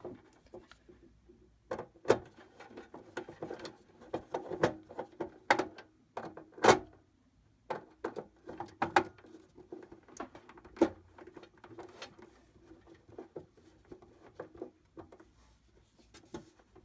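Irregular small clicks, taps and rustles of wires being handled and pushed into the terminals of an irrigation controller's terminal board, with a faint steady hum underneath.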